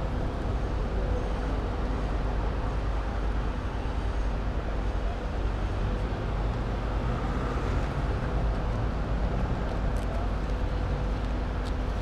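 Mobile crane's diesel engine running steadily: a low drone with a faint even hum above it, unchanging throughout.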